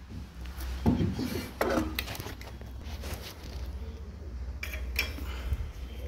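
Scattered metal clinks and knocks as a soda-machine CO2 regulator and its parts are handled and worked on, over a steady low hum.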